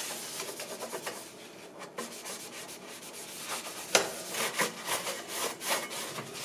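Paper towel rubbing over the metal back wall and convection fan cover inside a countertop air fry oven, in a run of short wiping strokes. There is one sharp tap about four seconds in.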